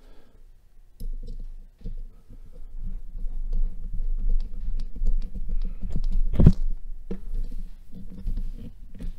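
Handling noise of a folding knife being reassembled on a silicone work mat: low rubbing and bumping with scattered small clicks of metal parts, and one sharp knock about six and a half seconds in.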